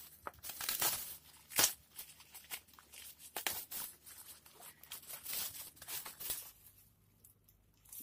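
Bubble-wrap packaging rustling and crinkling with sharp crackles as it is handled and pulled open by hand; it goes much quieter about six and a half seconds in.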